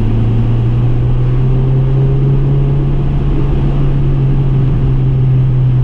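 Car engine and road noise heard from inside the cabin while driving: a steady low hum that edges up slightly in pitch, over a constant rumble.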